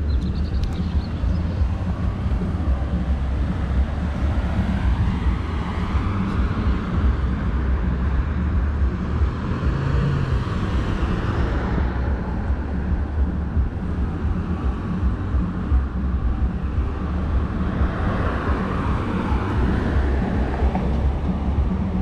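Wind rumbling over a handlebar-mounted GoPro's microphone as a road bicycle rolls along, with tyre and road noise underneath. Passing traffic swells and fades twice, once around the middle and again near the end.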